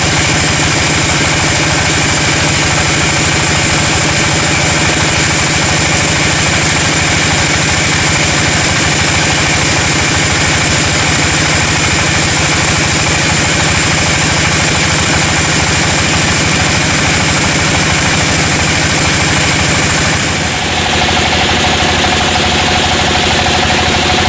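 Sawmill engine running steadily at a constant speed. About twenty seconds in, the sound dips briefly and then changes character, turning brighter with a new steady tone.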